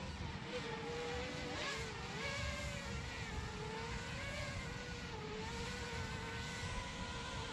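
Feima Robotics J.ME quadcopter drone's propellers whining in flight, the pitch wavering up and down as the motors adjust their speed.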